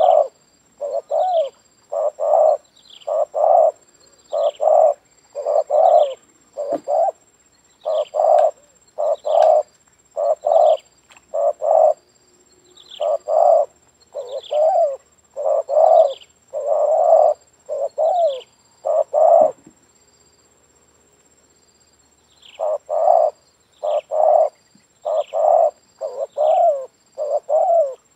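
Spotted dove cooing over and over in quick pairs of low notes, one pair after another, with a break of about three seconds past the middle of the run.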